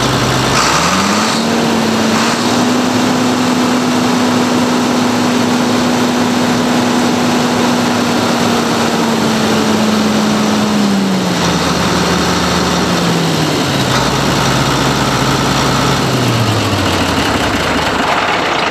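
John Deere 8640 tractor's six-cylinder turbo diesel engine, throttled up by hand at the injection pump. It climbs from idle to a high steady speed within about a second, holds there for roughly ten seconds, then drops back toward idle in three stages.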